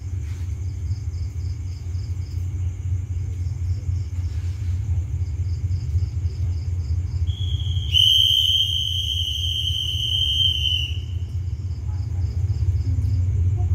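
Low steady rumble of a diesel train engine, with insects chirping in short pulsed runs. About eight seconds in, a shrill steady whistle sounds for about three seconds and cuts off suddenly.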